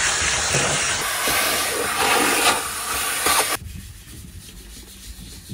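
Pressure washer spraying water in a loud, steady hiss that cuts off suddenly after about three and a half seconds.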